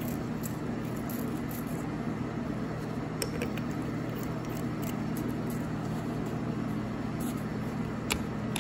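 Steady low hum in the background, with a few faint metallic clicks as bolts are set by hand into the cast-iron PTO gearbox cover.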